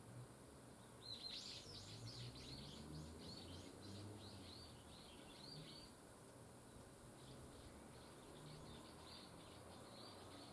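Small songbirds chirping faintly: a quick run of high chirps starting about a second in, then a fainter run near the end, over a low steady outdoor background.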